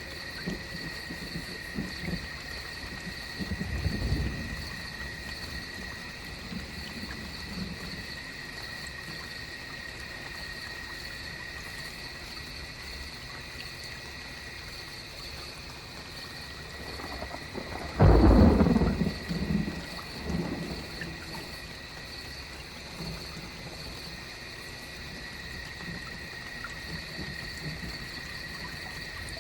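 Steady rain during a thunderstorm. A low thunder rumble comes about four seconds in, and a louder, sudden thunderclap about eighteen seconds in rumbles away over a few seconds.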